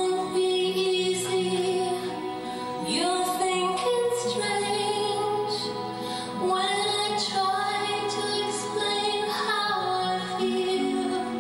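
Music with a woman singing long, wavering notes over a steady accompaniment.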